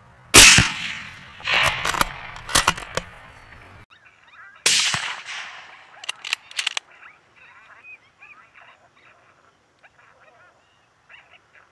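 Two rifle shots about four seconds apart, each a sharp crack with a fading tail and a few sharp clicks after it; the first is the loudest. Short wavering cries come faintly in the second half.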